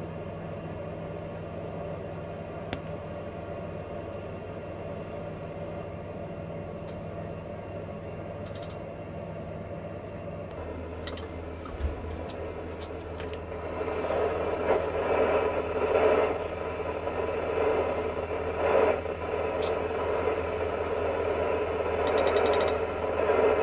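Steady low hum, then from about fourteen seconds in a wavering hiss of static from an amateur-radio transceiver tuned to the ISS downlink on 437.80 MHz. Near the end comes a quick run of clicks as the transceiver's tuning knob is turned.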